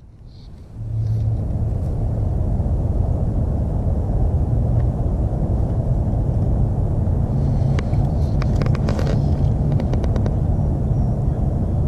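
A steady low rumble that sets in about a second in and holds, with a few faint clicks in the second half.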